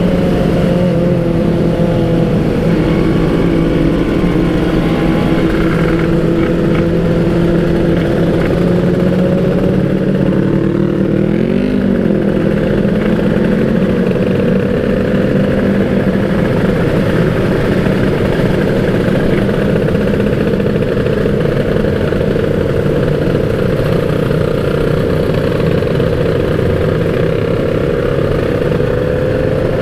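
Kawasaki Ninja RR's 150 cc two-stroke single-cylinder engine running at fairly steady revs, with a brief rise and fall in pitch about twelve seconds in.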